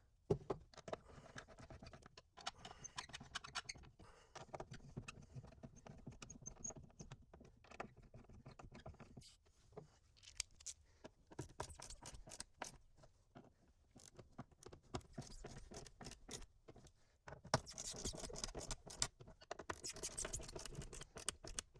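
A roll bar surround trim piece being handled and fitted into place in a Jeep Wrangler's interior: scattered clicks, knocks and light rattles, with a stretch of scraping and rubbing near the end.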